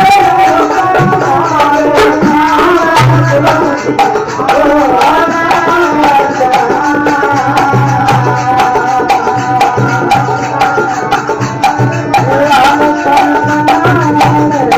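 Marwari devotional bhajan music: a steady, fast hand-drum rhythm with deep bass strokes under a sustained, moving melody line.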